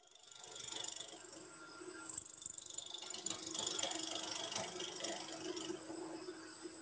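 Turning tool cutting a spinning wooden spindle on a lathe: a dense, scraping hiss of wood being cut that swells up in the first second as the tool bites, over the lathe's steady hum.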